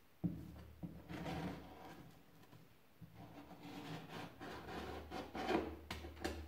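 Metal paint scraper pushed in repeated strokes along a wooden cabinet frame, scraping off paint softened and blistered by chemical stripper, with small clicks as the blade catches.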